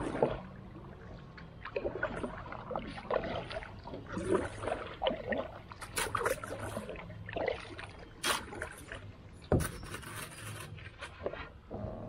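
Creek water splashing and sloshing in irregular bursts about every second, with a few sharp knocks in the second half.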